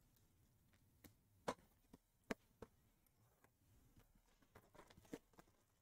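Near silence broken by a few faint, sharp taps and clicks of trading cards and a clear plastic card holder being handled.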